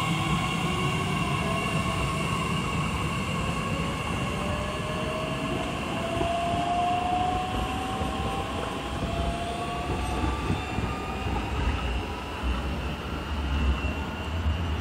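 Bombardier Talent 2 (class 1442) electric multiple unit pulling away and accelerating, its traction drive whining in a slowly rising pitch over steady high tones and a low rumble of the train on the track.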